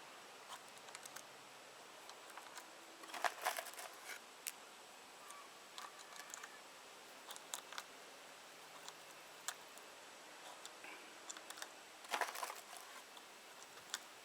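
Faint clicks and small clatters of .22 long rifle cartridges being pressed one by one into a Glock G44 magazine with its load-assist button. There is a louder burst of clatter about three seconds in and another about twelve seconds in.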